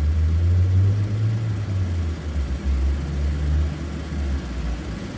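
Car engine idling with a low, steady hum while it drives a clutchless variable-displacement A/C compressor, which is commanded to partial stroke.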